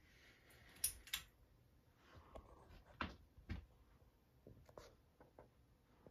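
Near silence in a small room, broken by a few faint clicks and knocks; the sharpest two come about a second in.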